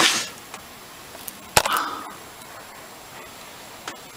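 A short scrape, then a sharp metallic knock about a second and a half in with a brief ring after it, and a faint click near the end: hand tools working on a seized old Amal carburettor body clamped in a vice.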